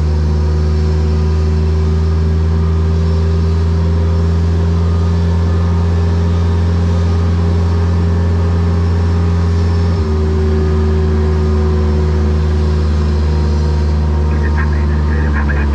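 Aircraft pushback tug's diesel engine running steadily with a deep, even drone; its note changes abruptly about ten seconds in.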